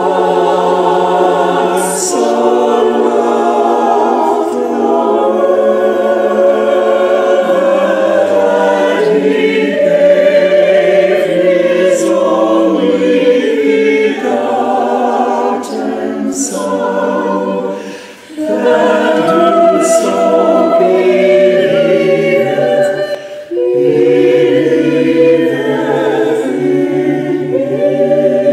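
Church choir singing held chords, with two short breaks for breath about two-thirds of the way through.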